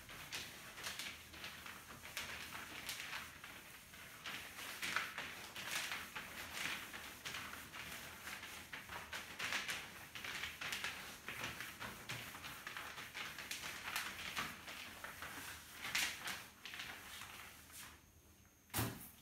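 Cloth duster wiping marker off a whiteboard: a long run of irregular rubbing strokes, with a single knock near the end.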